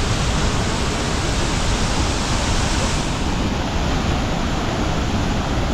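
Large waterfall's steady roar of falling water, a loud, even rush that does not change.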